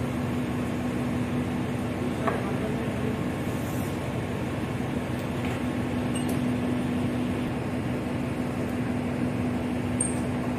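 Steady drone of a steamship's machinery and ventilation, with a constant low hum. A few small clicks sound over it.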